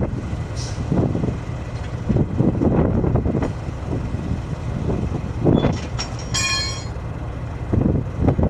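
Heavy-equipment diesel engine running steadily, with repeated irregular metal clanks and knocks from the tyre-change work. A short, high metallic ring sounds about six and a half seconds in.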